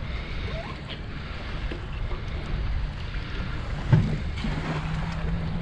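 Wind buffeting the microphone and water lapping against a boat's fibreglass hull. There is a single knock about four seconds in, then a steady low hum.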